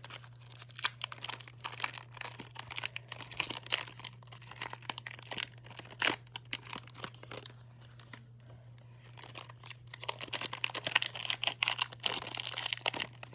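Plastic wrapper of a trading card pack being torn open and crinkled in the hands, in irregular crackles that ease off for a couple of seconds midway and pick up again. A steady low hum runs underneath.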